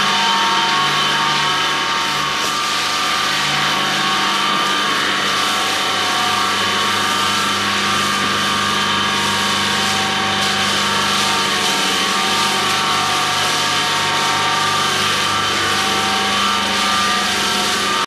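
Washdown hose jetting water onto a concrete floor, a steady rushing spray, over a steady machine hum made of several held tones.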